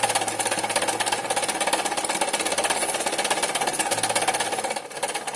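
Small electric onion-slicing machine running: a steady motor hum under a fast, even clatter from its cutting mechanism, dipping briefly near the end.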